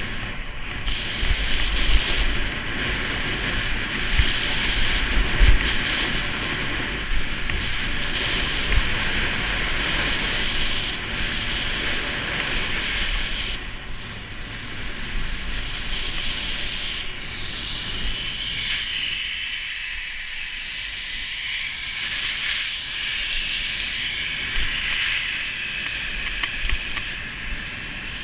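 Skis hissing through fresh snow on a run, with wind rushing and buffeting the camera's microphone. The low wind rumble eases about halfway through.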